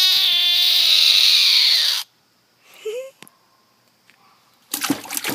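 A frog giving its distress scream, a long, loud, high wailing cry of the kind frogs make when grabbed or handled. The scream cuts off suddenly about two seconds in.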